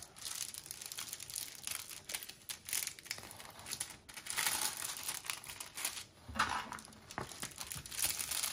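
A diamond painting canvas and its plastic cover film crinkling and rustling in irregular strokes as it is handled and pressed to flatten its curled corners.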